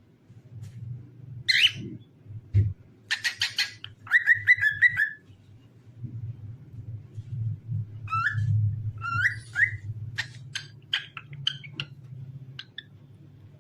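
Cockatiel whistling and chirping in short phrases: a harsh buzzy call about three seconds in, a run of whistled notes, then several rising whistles and quick chirps. A low steady hum lies underneath, with a single thump between two and three seconds in.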